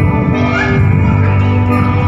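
Mixed choir of men and women singing a church hymn together, holding sustained chords.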